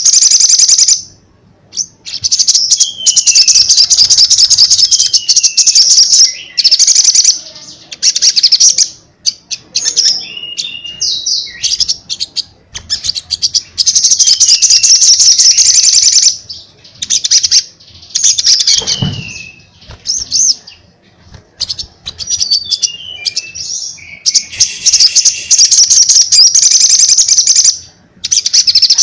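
Caged male olive-backed sunbird singing loudly and continuously: long, rapid, high trilled phrases a few seconds each, broken by short pauses and thin falling whistled slurs. A single brief thump sounds about two-thirds of the way through.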